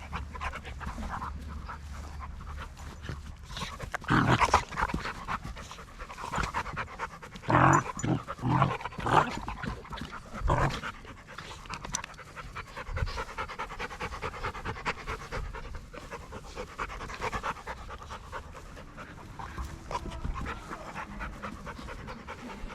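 Dogs panting while they play-wrestle, with a loud short sound about four seconds in and a run of short, loud sounds between about eight and eleven seconds.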